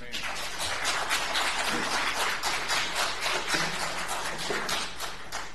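Congregation applauding: many hands clapping together for about five seconds, then stopping near the end.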